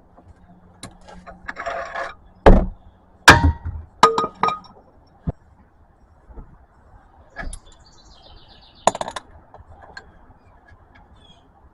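Metal hand tools clanking: a breaker bar and a jack handle used as a cheater bar being handled and knocked about after breaking a drain plug loose. There are several sharp metallic knocks, three loud ones close together a few seconds in, some ringing briefly, then a quick run of faint clicks and one more knock later on.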